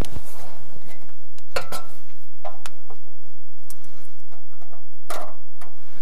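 Scattered clicks and knocks from an alarm control panel's front cover being handled and lifted into place, a few of them ringing briefly.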